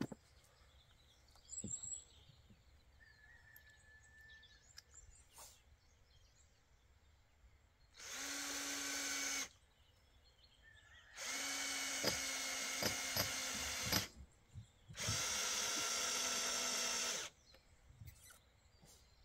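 Cordless drill running in three bursts, each a second and a half to three seconds long, driving screws into wooden edging boards. It gives a steady motor whine, with a few sharp clicks during the second, longest run.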